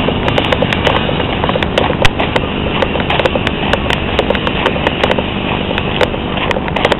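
Footsteps of a person walking along a road, in a steady clip-clop rhythm, with scattered sharp clicks from the jostled hand-held camera.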